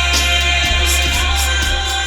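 Electronic dance music from a live DJ set: a steady beat over deep sustained bass, with a sung vocal in the mix.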